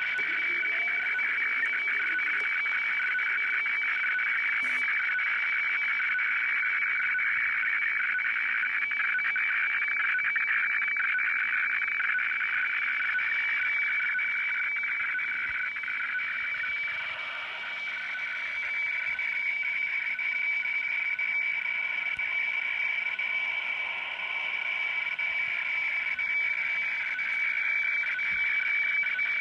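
Shortwave radiofax (WEFAX) transmission from Kyodo News playing through a Sony CRF-V21 world band receiver's speaker as it prints the page. It is a steady high whistle with a rasping, warbling band of tones just below it, and it dips slightly in level about seventeen seconds in.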